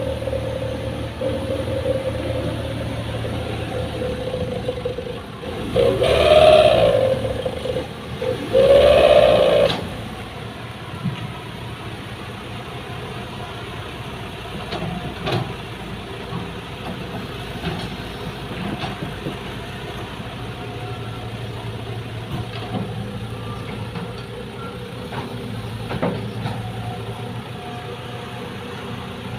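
Heavy diesel engine running steadily, revving up and back down twice in the first ten seconds, then running lower with a few short knocks.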